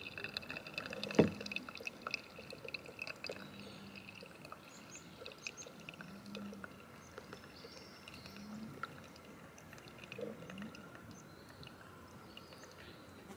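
Faint trickle and dripping of coffee running through a plastic pour-over filter cone into a cup, with one sharp click about a second in.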